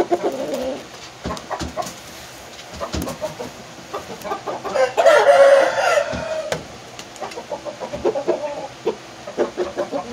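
A rooster crows once, about five seconds in, the call lasting about a second. Short low calls and scattered sharp clicks come and go around it.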